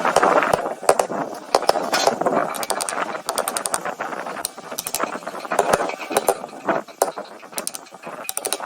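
Woodworking handwork: irregular clicks, taps and knocks over a steady scraping rustle.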